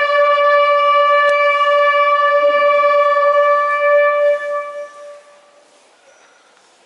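Buglers holding the last, long note of a bugle call. The note rings steadily for about four and a half seconds, then dies away, leaving faint crowd ambience.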